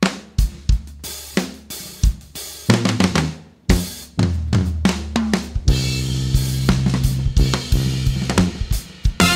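Drum kit break in a funk brass band tune: snare, bass drum, hi-hat and cymbal hits. A little past the middle, low brass comes in on a long held note under the drums.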